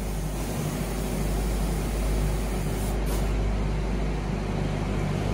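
Semi truck's diesel engine running steadily at idle, a low hum.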